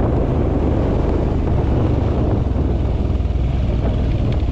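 Royal Enfield Himalayan motorcycle engine running steadily, its low engine note under a dense layer of noise, with no clear revving or change in pitch.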